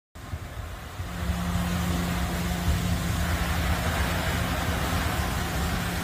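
CT80 ride-on floor scrubber running as it drives and scrubs the floor: a steady motor hum over a low rumble, coming up about a second in.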